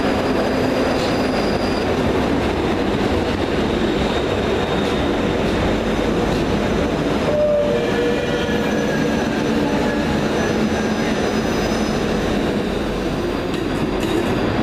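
ScotRail Class 334 Juniper electric multiple unit running in along the platform and slowing to a stop, with a steady rumble of wheels on rail. Thin squealing tones come in about halfway through as it brakes.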